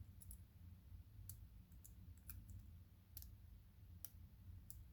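Faint, scattered clicks of a half-diamond lock pick brushing over the wafers inside an old East German wafer padlock under very light tension, a tick every half second or so.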